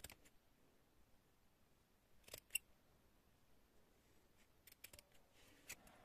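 Metal scissors snipping through looped strands of wool yarn to open up a pompom. A few short, faint snips: two close together about two and a half seconds in, the loudest, then a small cluster near the end.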